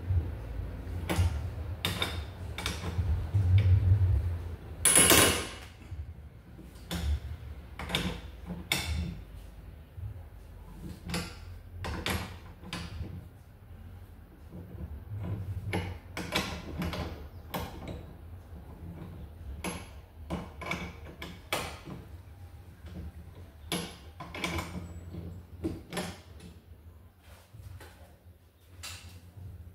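Irregular metallic clicks and knocks of hand tools working on a car's rear suspension, with one louder, longer noise about five seconds in.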